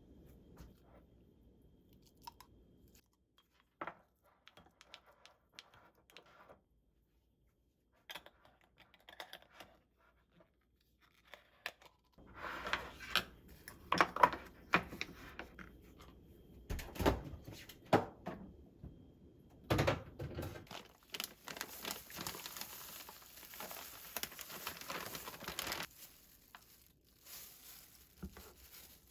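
Household handling sounds: a few faint scattered taps and clicks, then from about twelve seconds in a busy stretch of rustling and tearing with some sharp knocks, and a steady hiss for several seconds near the end.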